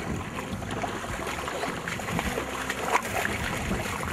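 Splashing in shallow river water as a hooked brown trout is landed by hand, over the steady rush of the river. A few sharper splashes come about three seconds in.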